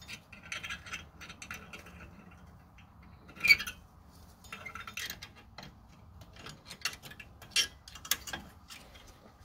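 Scattered light metallic clicks and scrapes as a coil return spring is worked onto drum-in-hat parking brake shoes with a pointed steel scriber, the sharpest click about three and a half seconds in.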